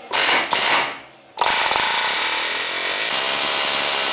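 Pneumatic air chisel hammering a chisel bit against the head of a factory ball-joint rivet to cut it off: two short bursts in the first second, then a long unbroken run from about a second and a half in.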